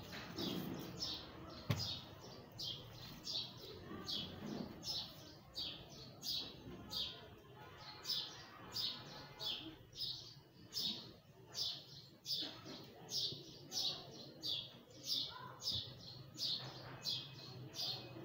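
A small bird chirping over and over, short high chirps at about two a second. A single sharp click comes about two seconds in.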